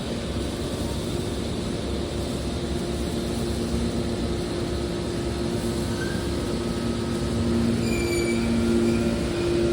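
Hydraulic metal baler running: a steady machine hum from its pump and motor, with a few short high squeaks about eight seconds in.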